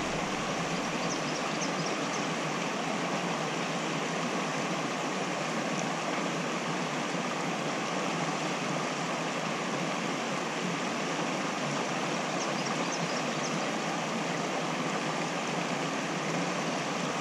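Creek water flowing steadily over a shallow, rippling stretch of stream, an even rushing hiss with no change in level.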